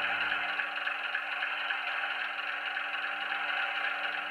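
Sound decoder's recording of a Class 105 diesel multiple unit's Leyland diesel engines idling steadily, played through the OO gauge model's small onboard speaker, so it sounds thin with no deep bass.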